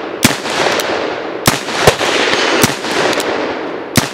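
Pietta-built EMF Pony Express single-action revolver in .357 Magnum/.38 Special being fired: four sharp shots about 1.2 s apart, each followed by ringing echo that fills the gaps between them.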